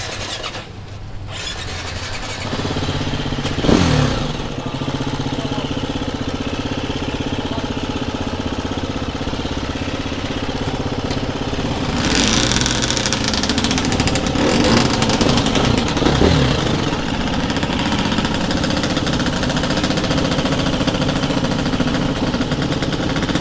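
Small off-road engine starts about two seconds in and runs at idle. It gives a quick rev near four seconds and runs louder from about twelve seconds on.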